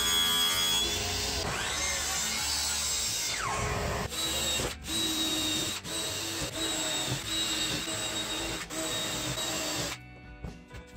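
A table saw cutting a sheet of Lexan, then a cordless drill boring holes in the Lexan in several short runs. The power-tool noise stops about ten seconds in, leaving quieter background music.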